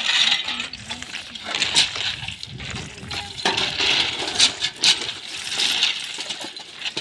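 Crushed-stone track ballast clinking and scraping as it is dragged and shovelled with iron bars and a metal pan, in many sharp, irregular stone-on-stone and metal-on-stone clicks. The ballast is being dressed and boxed up around the sleepers.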